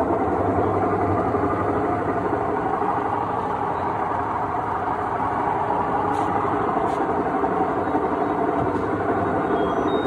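Whirlpool WhiteMagic Elite 6.5 kg top-load washing machine running with a steady mechanical noise from its drive: the fault noise that a gearbox replacement is meant to cure.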